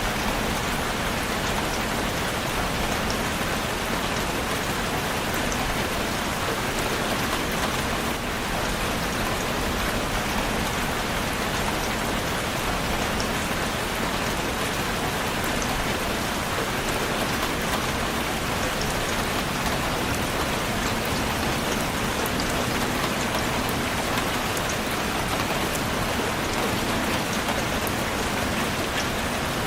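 Steady, even rainfall with scattered drop ticks, a constant wash of rain on surfaces.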